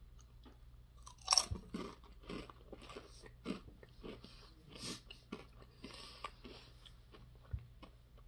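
A Lay's Cheetos-flavoured potato chip bitten off with a sharp crack about a second in, then chewed with a run of irregular crisp crunches for several seconds.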